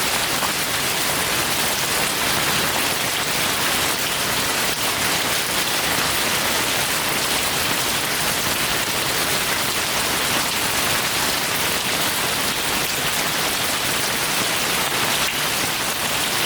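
Heavy rain falling steadily: an even, unbroken hiss of rainfall.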